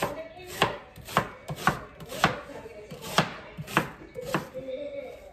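Kitchen knife chopping an onion on a cutting board, sharp even strokes about twice a second.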